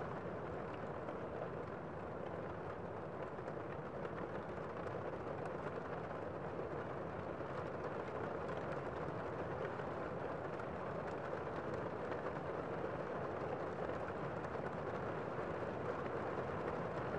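Steady city street ambience, an even wash of crowd and traffic noise with no single sound standing out.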